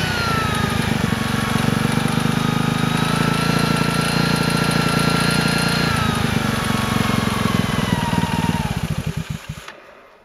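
Yamaha Grand Majesty 250 scooter's single-cylinder engine running with an abnormal noise that the owner traces to the cylinder and cannot identify. The revs drop back at first, rise and hold for a few seconds, fall again, and the engine is switched off, its firing slowing to a stop about nine seconds in.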